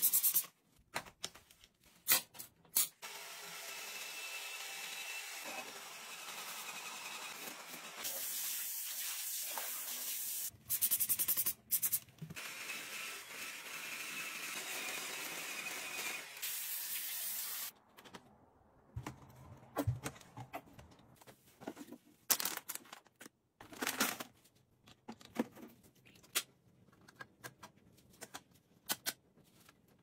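A trigger spray bottle squirts a few times. Then a handheld electric spin scrubber runs steadily with a faint whine for about fifteen seconds as it scrubs a wet, foamy floor drain. After it stops, there are scattered short scrubbing and rubbing strokes.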